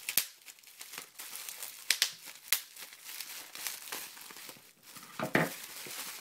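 Scissors cutting open clear plastic bubble wrap, the wrap crinkling as it is handled, with several sharp snaps through it.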